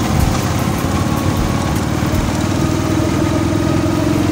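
Motorcycle engine running steadily while riding, its hum getting stronger and rising slightly in pitch in the second half.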